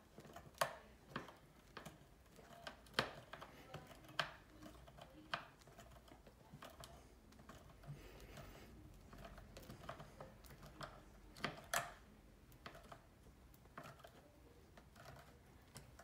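Screw being driven by hand with a crosshead screwdriver into a pine spice rack's front bar: irregular sharp clicks as the screwdriver turns and the screw bites into the wood.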